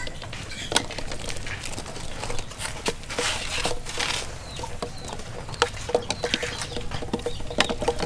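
Eggs being set one by one into an aluminium pot of water: irregular light knocks and clicks of shell against metal and against each other, with birds chirping faintly in the background.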